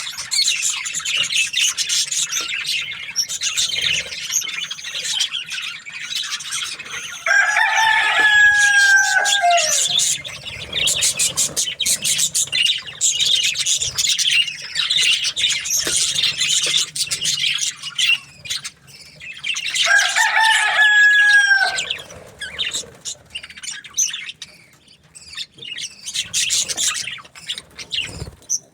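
A flock of budgerigars chattering and chirping throughout. A rooster crows twice over the chatter, once about seven seconds in and again about twenty seconds in; each crow lasts two to three seconds and is the loudest sound.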